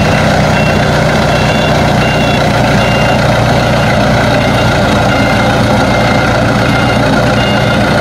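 Aircraft tow tractor's engine running steadily on the apron, a loud even noise with a low hum underneath, while short high beeps sound now and then.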